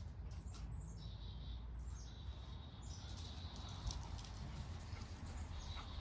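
Birds chirping, with high thin calls that step down in pitch and hold for a second or two, over a low rumble.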